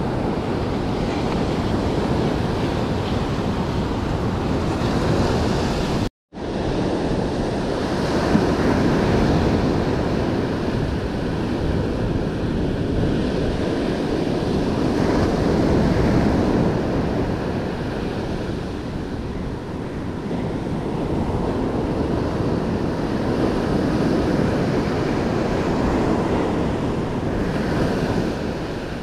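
Ocean surf breaking and washing up a sandy beach, with wind buffeting the microphone. The sound cuts out completely for a moment about six seconds in.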